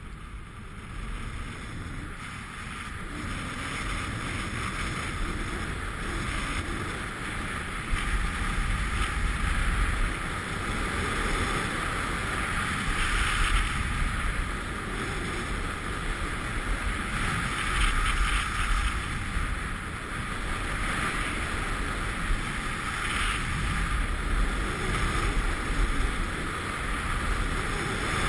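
Rushing wind on an action camera's microphone together with the hiss and scrape of edges sliding over groomed snow during a fast downhill run. It builds over the first several seconds as speed picks up, then stays loud and uneven.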